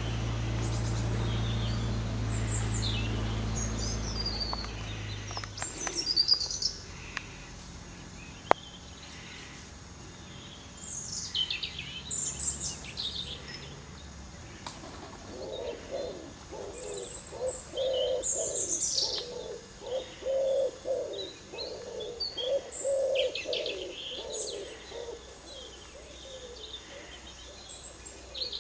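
Wild birds chirping and calling, with short high notes scattered throughout. A low steady hum is heard for the first five seconds or so, and stops; in the second half a low call repeats several times a second.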